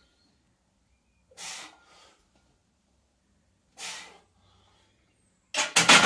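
A lifter's short, forceful exhales, one for each bench-press rep, about every two and a half seconds. Near the end comes a loud metallic clatter as the loaded barbell is set back in the rack.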